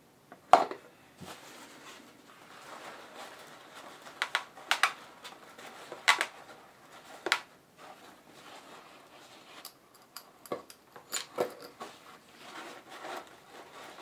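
Scattered sharp clicks, the loudest about half a second in, as small steel bearing balls from an e-bike freewheel are picked out with a magnetic pick-up tool and drop into a plastic tub. A paper towel rustles between the clicks as the parts are wiped.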